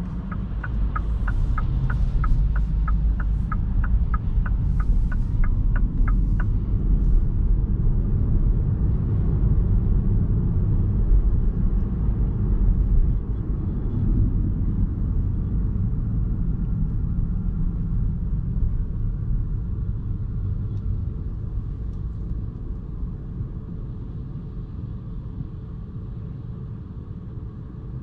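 Road and tyre rumble inside the cabin of a 2021 MINI Cooper S E Countryman plug-in hybrid on the move, growing quieter over the second half as the car slows. The turn-signal indicator ticks about three times a second, stopping about six seconds in.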